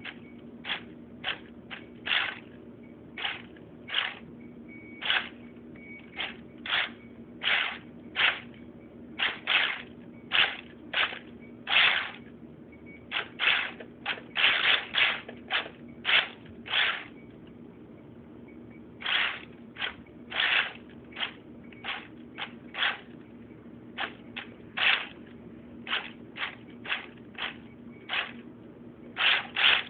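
Brushed electric motor and belt drive of a CT5 RC car whirring in dozens of short, irregular throttle blips with the wheels off the ground, stuttering rather than running up because the batteries are low.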